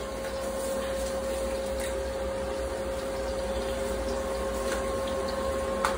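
Eggs frying in coconut oil in a steel wok over a gas burner, a steady sizzle with a faint steady hum underneath.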